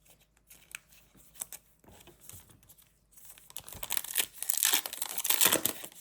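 Plastic-foil trading card pack being torn open and its wrapper crinkled, loudest in the second half. Before that, a few light ticks and rustles of cards being handled.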